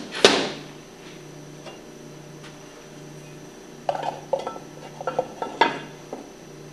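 Metal pump parts clacking and clinking as the front housing of a Hypro centrifugal pump is fitted and held over its bolts: one sharp clack just after the start, then a cluster of light metallic clinks with brief ringing about four to six seconds in.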